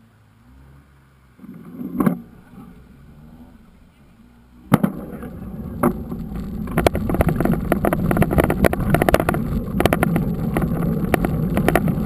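Mountain bike setting off on a paved road: one thump about two seconds in, then from about five seconds in a steady rumble of wind on the bike-mounted camera's microphone with quick rattling clicks from the bike.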